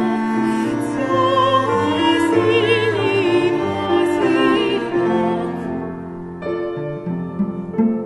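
A woman singing a lullaby-style classical art song with vibrato, accompanied by piano and bowed cello. About five seconds in her phrase ends, and the piano and cello carry on alone.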